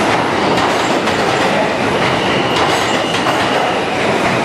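R160-series New York subway train running into an underground station platform at speed: a loud, steady rumble of steel wheels on rail with clicking over the rail joints, echoing in the station. A thin high tone joins about halfway through.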